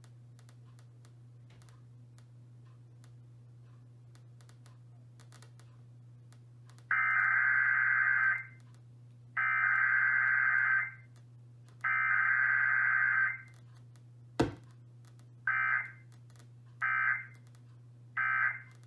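Emergency Alert System SAME data bursts: three warbling digital header bursts of about a second and a half each, about a second apart. A click follows, then three short end-of-message bursts. A steady low electrical hum runs underneath, alone for the first several seconds.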